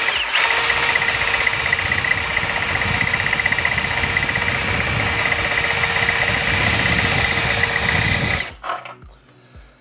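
Milwaukee M18 cordless hammer drill running with a steady whine as a step bit cuts through a post to enlarge a hole. It stops abruptly after about eight seconds. The step bit is dull from heavy use and cuts slowly.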